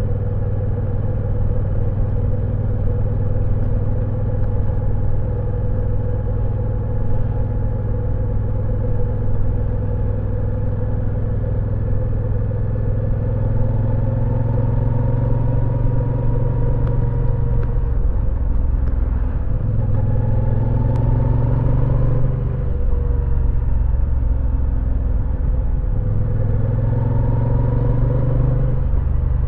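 Moto Guzzi V9 Roamer's air-cooled transverse V-twin running under way, heard from the rider's seat. The engine note holds steady at first, then rises and falls a few times in the second half as the engine speed changes.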